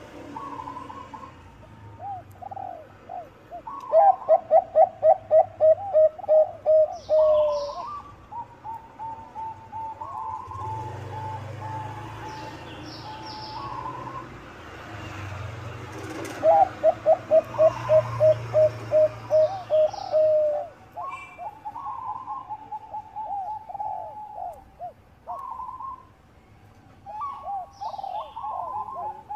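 Zebra doves (Bangkok-type perkutut) singing their staccato cooing song. Twice a long run of rapid pulsed coo notes rolls out, with shorter coo phrases between. Faint high chirps of other small birds sound now and then.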